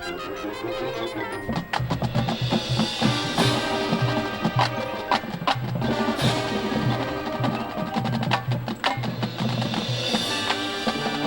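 Marching band playing its show music: sustained chords over drumline and front-ensemble percussion, with many sharp struck accents.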